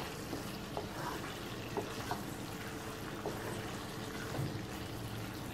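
Okra in masala sizzling softly in a nonstick kadai, a steady quiet hiss, with a few faint taps of the spatula against the pan.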